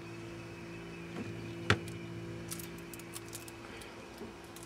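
Steady low hum of an open refrigerator, with one sharp click a little under two seconds in and a few faint clicks after it as things on its shelves are handled.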